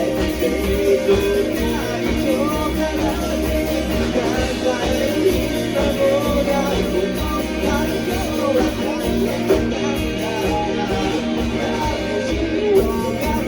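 Rock song playing: singing over guitar, continuous and steady in level.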